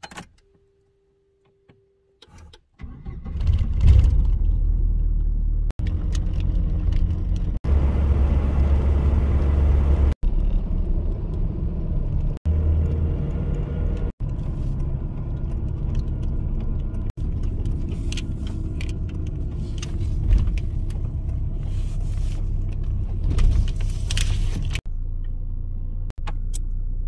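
Cab interior of a pickup truck on the move: a steady low engine and road rumble that starts about three seconds in, with light rattles and jingles over it. The sound breaks off for an instant several times where short clips are cut together.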